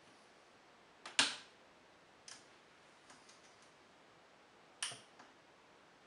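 A few sharp plastic clicks and taps from a hand working the toy washing machine's controls: a loud double click about a second in, another a second later, a few faint ticks, then one more click near the end. The motor is not yet running.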